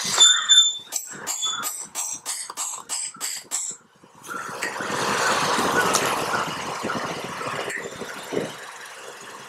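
A hammer gives about a dozen light taps, roughly three a second, on a 30 mm box spanner, driving a motorcycle fork oil seal into its fork leg. The metal rings faintly on each tap, which is kept gentle so the seal seats a little further without damage. After about four seconds the taps stop, and a rushing noise swells and fades away.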